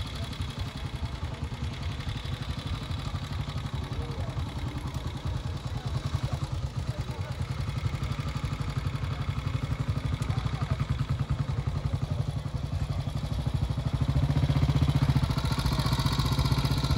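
An engine running steadily with a rapid low pulse, growing louder about fourteen seconds in.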